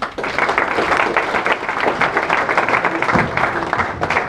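Audience applauding, breaking out suddenly and keeping up a steady, dense clapping.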